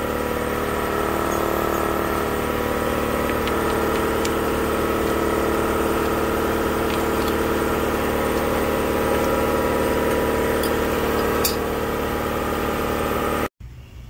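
Seat and guide machine's spindle motor running steadily at constant speed, with a few faint ticks, then stopping abruptly near the end.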